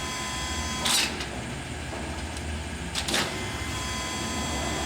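1961 LeBlond heavy-duty gap lathe running steadily with its spindle at 52 RPM: a low steady hum with a faint high gear whine. Two short bursts of noise come about one and three seconds in.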